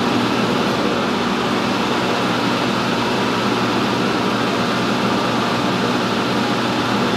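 Steady, unchanging fan noise, an even whoosh with a low hum underneath.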